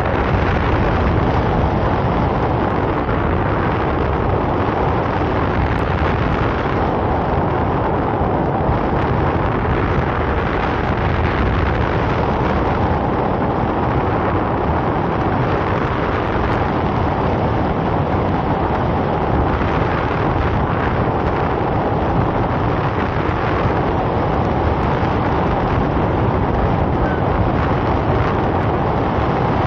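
Steady rush of airflow over the microphone during paraglider flight.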